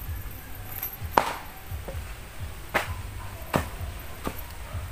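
A cast net's lead sinkers clicking and knocking on concrete as the wet net is handled and picked over: a handful of sharp separate knocks at irregular intervals.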